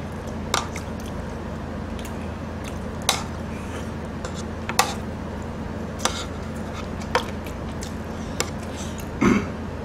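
Utensils clicking against dishes while eating: about six sharp, separate clinks spread over several seconds, over a steady low hum.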